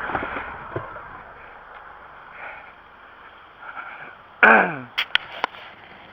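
Hammer striking metal: three sharp taps in quick succession about five seconds in, just after a short squeal that drops quickly in pitch, with a couple of lighter knocks near the start.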